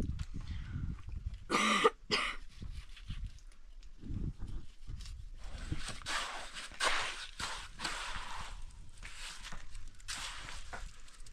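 A trowel working wet cement mortar in a tub: repeated rough scraping strokes from about halfway through. A brief loud scrape comes about two seconds in.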